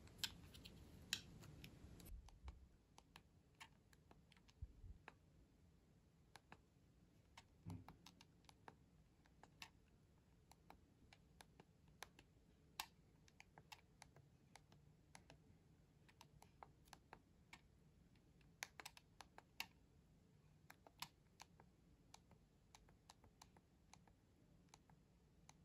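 Faint, irregular clicks of small buttons being pressed, one or two a second, with a few soft low thumps in the first seconds.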